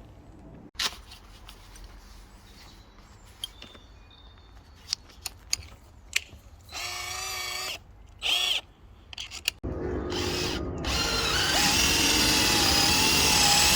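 Hychika DD18F 18 V cordless drill driver whirring in two short bursts, then running steadily and loudly for the last four seconds, with scattered handling clicks before.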